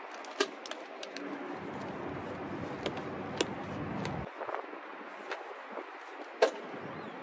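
Scattered sharp knocks and clicks of someone climbing and handling things in a convertible's rear seat area, over steady outdoor background noise. A low rumble underneath stops a little past halfway, and the sharpest knock comes near the end.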